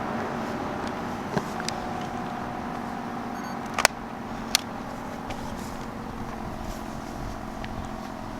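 Reverse-wired ACA Screamer S10 outdoor warning siren sounding a steady low tone that slowly fades. Three sharp clicks cut through it, the loudest about four seconds in.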